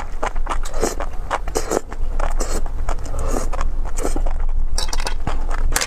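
Close-miked slurping and chewing of saucy, stringy food, in quick, irregular wet mouth sounds over a steady low hum.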